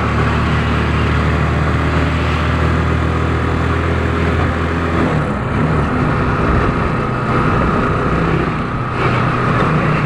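Road traffic heard from a moving vehicle: steady engine hum and rushing road and wind noise, with the low engine hum dropping away about halfway through.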